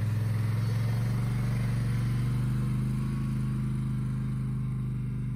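Polaris Sportsman Touring 1000 XP ATV's twin-cylinder engine running with a steady low note as the quad pulls away at a gentle pace, growing a little fainter after about three seconds as it moves off.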